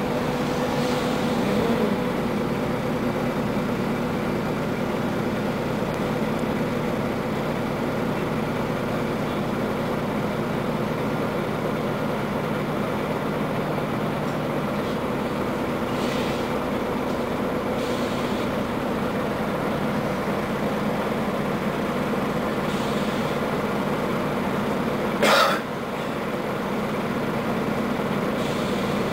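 Steady drone of a Scania N94UA articulated city bus's engine and road noise, heard from inside the moving bus. About 25 seconds in, a single short, loud, sharp sound stands out above the drone.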